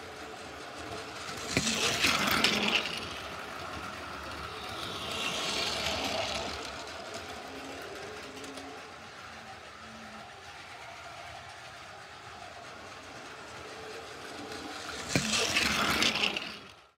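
Battery-powered Plarail toy shinkansen trains running on plastic track: a steady motor whir with the clatter of plastic wheels on the track. It swells louder about two seconds in, again around five to six seconds, and near the end, then cuts off.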